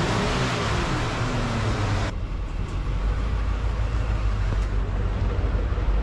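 An old Cadillac running and on the move. A loud rushing sound with wavering tones stops abruptly about two seconds in, leaving a steady low rumble from the car.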